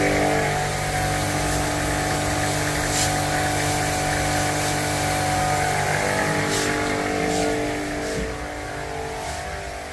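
Electric pressure washer motor running with a steady hum, fading out about seven to eight seconds in.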